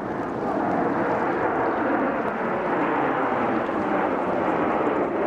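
Jet noise from a formation of Red Arrows display jets flying overhead: a steady rushing sound that grows louder over the first second, then holds.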